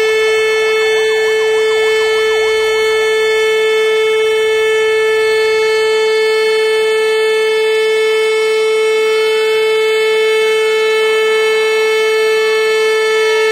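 Siren sounding one loud, steady, unbroken tone with many overtones, as a welcome for a new fire truck. Fainter wavering tones sound briefly at the start, and fainter rising and falling tones join near the end.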